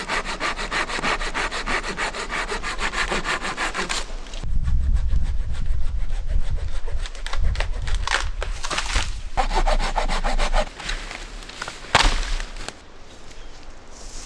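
A hand saw cutting through wood in quick, even strokes for the first four seconds or so. Then irregular knocking and rustling of wood being handled, with one sharp crack about twelve seconds in.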